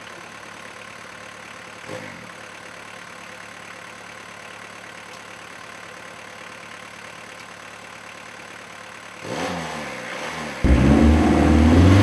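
A car engine running quietly at idle, then revving up with a rising pitch about nine seconds in. It suddenly gets much louder near the end, holding high revs as the car launches.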